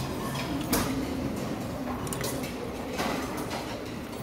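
Eating noises of metal chopsticks and a ceramic bowl clinking and tapping, with a couple of sharp clicks, about a second in and about three seconds in, over a steady background hum.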